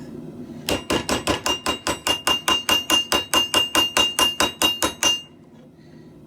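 Blacksmith's hammer striking hot steel on an anvil in a rapid, even run of about two dozen blows, roughly five a second, with the anvil ringing between strikes; the blows stop about five seconds in.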